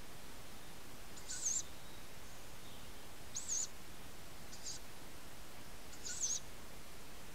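Tawny owl chick giving short, high-pitched begging calls: three about two to three seconds apart, with a fainter one between the second and third. A steady hiss runs under them.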